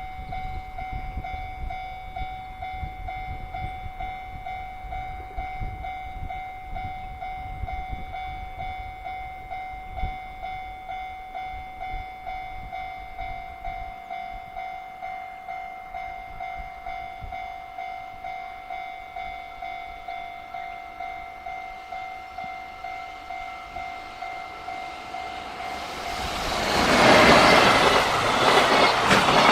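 Japanese level-crossing warning bell ringing in a steady, evenly repeating beat. About 26 seconds in, a freight train reaches the crossing and passes, its wheel and rail noise suddenly much louder than the bell.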